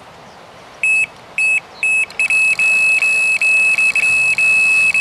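Electronic carp-style bite alarm on a fishing rod, beeping one high tone: three single beeps about half a second apart, then from about two seconds in a fast, almost unbroken stream of beeps. A tench has taken the bait and is running off with line.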